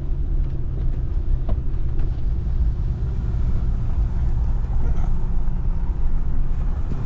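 A vehicle driving up a mountain road, heard from inside the cab with a window rolled down: a steady low rumble of engine and tyres.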